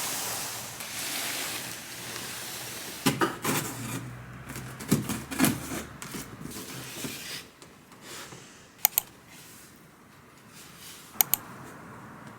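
Packaging and new kitchenware being handled while unboxing: a hiss that fades over the first two seconds, then rustling and scraping, then two pairs of sharp clicks, about nine and eleven seconds in.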